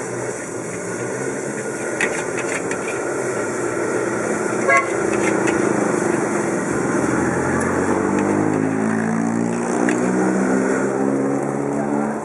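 Motorbike engines running on the road, growing louder in the second half as one draws near, with a short beep about five seconds in. Over this, scattered clinks and scrapes of a metal spatula stirring rice in a wok.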